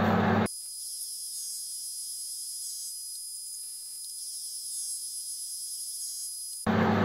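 Metal lathe running, cut off abruptly about half a second in; for about six seconds only a thin high-pitched whine with hiss remains, then the lathe sound returns suddenly near the end.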